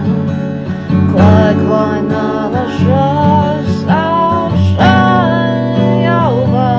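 A singer singing with their own strummed acoustic guitar accompaniment.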